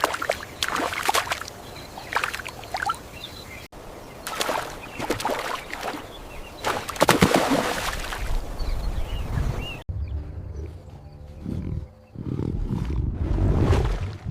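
Lion roars and growls, broken into segments that cut off abruptly about four and ten seconds in; the last segment is deep and rumbling.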